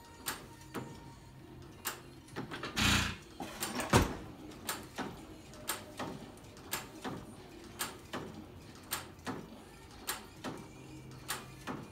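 6 hp Field-Brundage sideshaft hit-and-miss engine running: it fires once with a loud bang about four seconds in, then coasts on its flywheels with a light click about twice a second.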